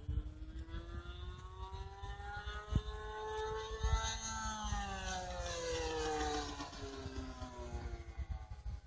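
OS .55AX two-stroke glow engine on an RC plane, turning a 13x6 propeller through a Pitts-style muffler. Its high buzzing note climbs in pitch over the first few seconds and then falls away.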